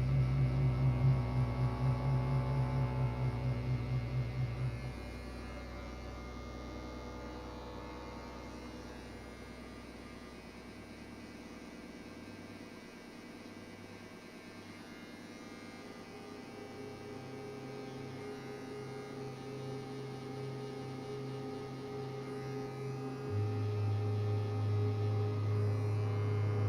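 Low electric hum, pulsing quickly for the first few seconds, fading out, then building back and growing louder near the end.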